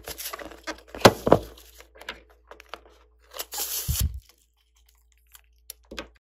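Rubber balloon filled with clay being handled close up: crackling rubber squeaks with the sharpest crack about a second in. Near four seconds, scissors snip through the balloon's rubber tip with a short thump.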